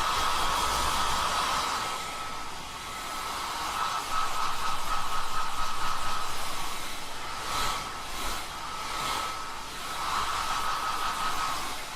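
Hair dryer blowing with a steady whine, growing louder and softer as it moves around the head. A few brief swishes come about two-thirds of the way through.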